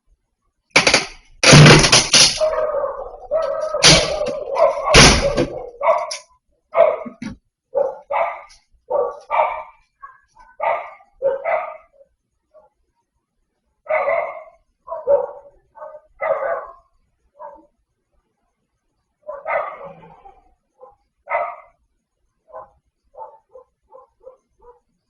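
A dog barking in a long series of short, sharp barks. The barks are loudest and most crowded in the first few seconds, then come spaced out and fainter.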